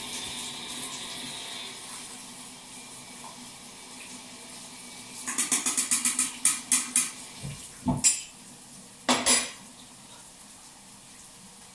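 Tap water running into a metal colander in a kitchen sink, then a quick run of metallic clattering about halfway through and a few single knocks as the colander rattles against the sink.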